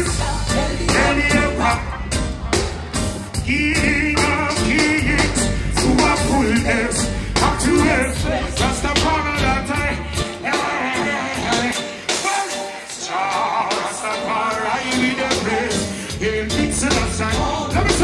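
Live reggae music: a male lead singer over a band playing through the stage sound system. About halfway through, the bass and drums drop out, leaving the voice over lighter backing.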